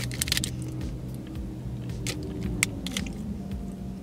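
Biting into and chewing a chocolate-coated protein bar, with crisp crackles from the bite and the wrapper near the start and a few more about two seconds in. A steady low hum runs underneath and fades about three seconds in.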